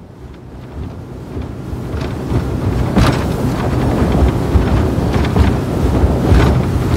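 Wind rushing over the microphone on a moving boat, with a steady low rumble underneath. It swells from a quieter start over the first two seconds, then holds steady with brief gusts.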